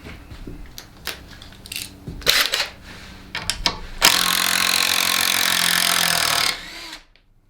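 A few handling clicks and knocks, then about four seconds in a cordless brushless impact driver runs for about two and a half seconds, backing a screw out in reverse, and stops.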